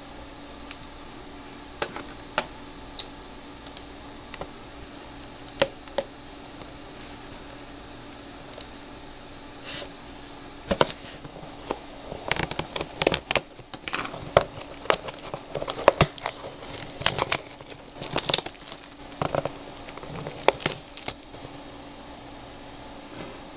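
A baseball-card blaster box being opened by hand: scattered light taps and clicks, then about halfway through a long stretch of crinkling and tearing of plastic wrap and packaging that stops a couple of seconds before the end.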